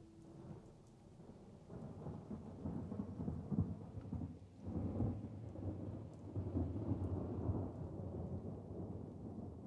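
Low, rolling thunder-like rumble that builds up and then swells and fades in several waves, with a faint hiss like rain above it.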